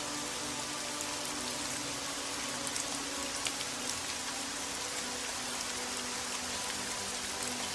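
Steady rain with scattered drops ticking, over soft background music of long held notes.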